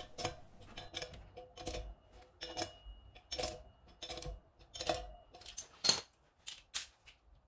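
Ratchet socket wrench clicking as the new rear sprocket's bolts are snugged down by hand, a series of separate short metallic clicks about twice a second, the loudest about six seconds in.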